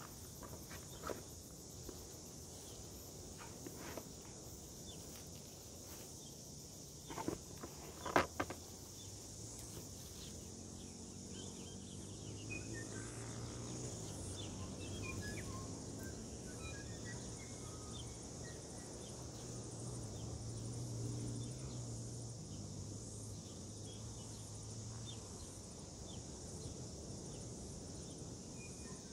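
Steady high chirring of insects such as crickets, with a few sharp knocks in the first eight seconds, the loudest a quick pair about eight seconds in. A low hum comes in about ten seconds in and fades out a few seconds before the end.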